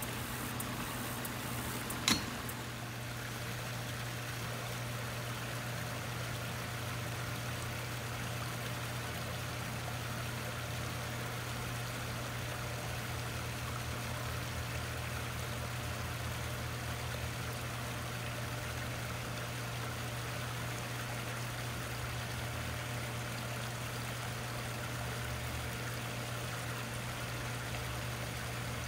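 Small rock waterfalls splashing steadily into a garden pond, with a low steady hum underneath. A single sharp click about two seconds in.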